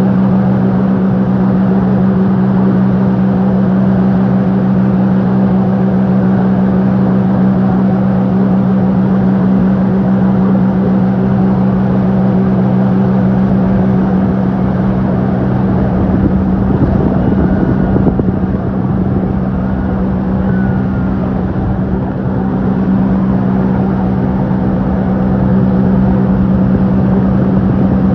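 Motorboat engine running steadily at speed, one strong held pitch, with a spell of louder rushing wind and water noise about two-thirds of the way through.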